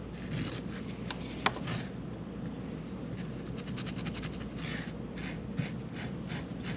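Hand scrubbing and scraping on a rusty 1976 Yamaha RD400 front brake caliper to clean off rust and grime: short scratchy strokes, a fast run of them about halfway through, and one sharp click about a second and a half in.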